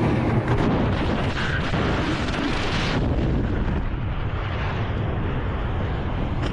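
Loud rushing roar of wind blast on a helmet-mounted camera as the pilot ejects from a Sukhoi Su-25 attack jet. The high hiss in the roar drops away about three seconds in.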